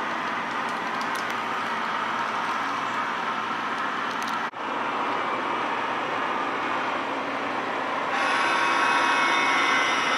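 HO-scale model coal train running on layout track: a steady rolling rumble and whir. The sound drops out for an instant about halfway through, and about two seconds before the end a louder sound with several steady high tones joins as the crossing signals start flashing.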